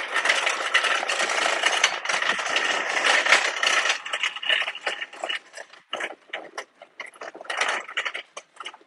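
Shopping cart rolling and rattling across a store floor: a steady clatter for about four seconds, then broken up into scattered rattles and clicks as it slows.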